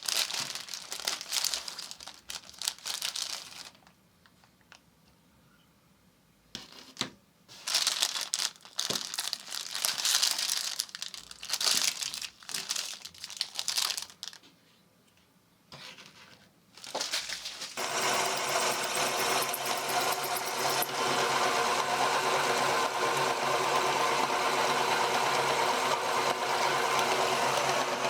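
Crinkling and crunching in irregular bursts with two long pauses. Then an electric meat grinder's motor starts and runs with a steady hum.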